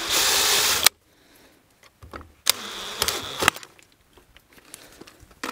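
Cordless drill boring a half-inch vent hole through the plastic wall of a gas can, in two bursts: a louder one in the first second and a shorter, quieter one with a steady whine about two and a half seconds in.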